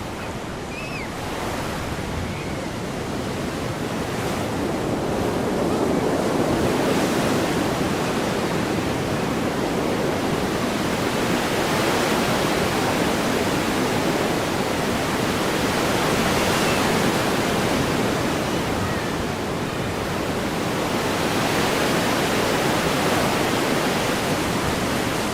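Heavy storm surf breaking and rushing in: a dense, steady wash of water noise that swells and eases every several seconds.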